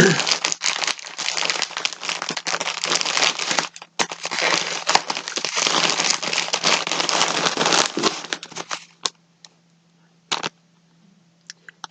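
Packaging crinkling as a skein of yarn is handled, in two long spells with a short break about four seconds in. It stops about nine seconds in, leaving a few scattered light clicks over a faint steady low hum.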